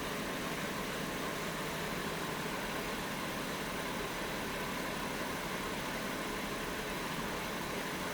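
Engine idling steadily with an even, unchanging running sound.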